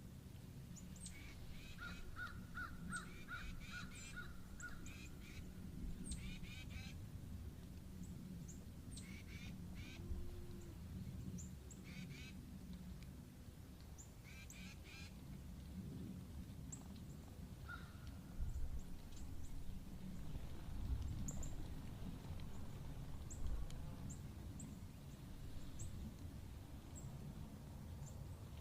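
Birds calling: a rapid run of repeated call notes in the first several seconds, shorter runs a few more times, and scattered high chirps, over a faint steady low rumble.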